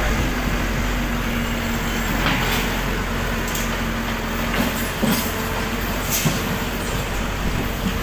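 H940C backhoe loader's diesel engine running steadily as its front bucket scrapes and pushes demolition rubble, with a few sharp knocks and scrapes of debris over the engine.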